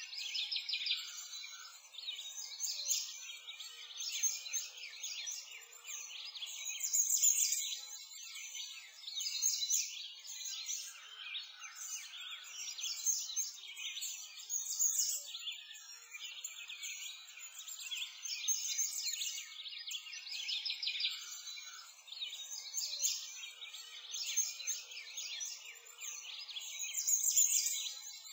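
Many songbirds chirping and singing together in a dense, continuous chorus of high, quick calls.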